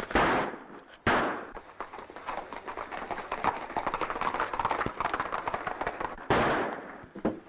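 Three gunshots in an old film soundtrack: one at the very start, one about a second in, and one near the end, each with a short echoing tail. Between them runs a rapid clatter of small knocks.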